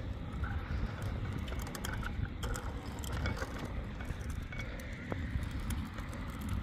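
Bicycles rolling along a concrete path: a steady low rumble of tyres and movement, with scattered light clicks and rattles from the bikes.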